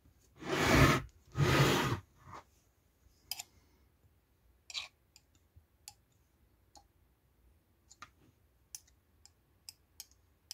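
Two loud handling noises, each just under a second, as the welding inverter is moved and turned over on the bench, then scattered light clicks and taps as a small screwdriver tip touches the underside of the circuit board.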